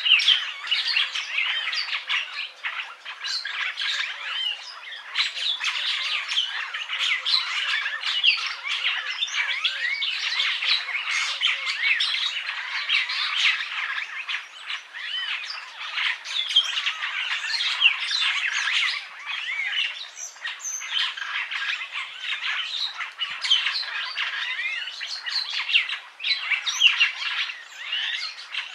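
Purple glossy starling (Lamprotornis purpureus) singing: a dense, unbroken stream of short chattering notes mixed with rising and falling whistles.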